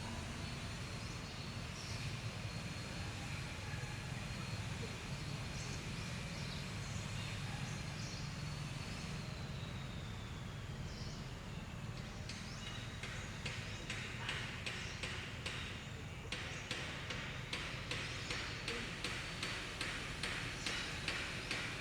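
Outdoor ambience: a steady low rumble under a high, thin tone that slides down in pitch and stops about halfway through, followed by a rhythmic pulsing high buzz, roughly two to three pulses a second.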